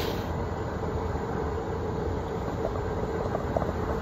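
Steady low background rumble with a constant hum. From about two and a half seconds in, a run of short soft blips: water bubbling in the base of a hookah as it is drawn on.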